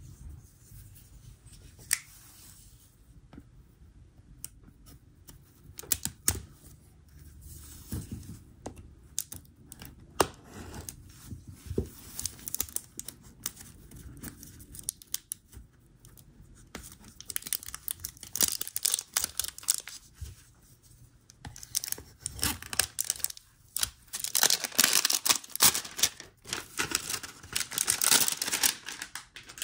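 Plastic shrink-wrap on a toy blind-box tub being slit with a folding knife and peeled off, crinkling and tearing. Scattered clicks and scrapes at first, then dense crackling from about halfway on, loudest near the end.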